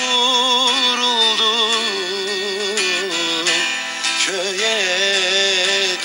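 Turkish folk song: a voice holding long, wavering, ornamented notes over a plucked string instrument, with a new phrase beginning about four seconds in.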